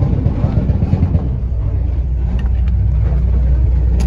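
A car engine running nearby with a deep, steady exhaust rumble that grows a little more even about a second in.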